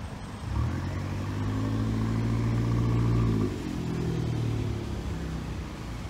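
Porsche 911 convertible's flat-six engine pulling away from a standstill in slow traffic. A strong, steady engine note comes in about half a second in, holds for about three seconds, then drops and fades as the car moves off, over a steady hum of queued traffic.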